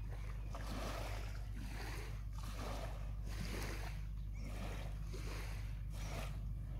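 Small waves lapping on a sandy shore, washing in and out about once a second over a steady low rumble.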